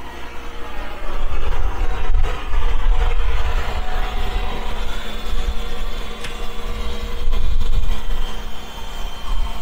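Early Cummins diesel engine of a Linn half-track tractor-truck running, a low rumble that grows louder about a second in, with a steady high whine over it.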